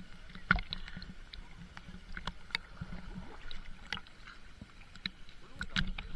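Water sounds: irregular small splashes and drips with scattered sharp taps over a low, steady rumble.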